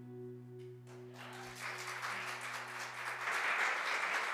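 A congregation applauding as the song's last chord is held and fades away. The clapping starts about a second in and swells, while the sustained chord dies out near the end.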